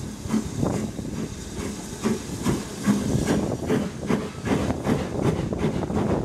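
BR Standard Class 9F two-cylinder 2-10-0 steam locomotive working a train, heard from an open carriage window behind it: a steady series of exhaust chuffs, about two to three a second, over a constant hiss of steam and running noise.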